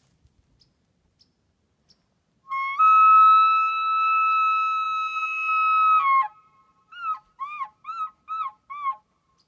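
Hand-blown elk bugle call imitating a bull elk's bugle: a loud, breathy high whistle that steps up and is held steady for about three and a half seconds, then drops off. It is followed by five short chuckles.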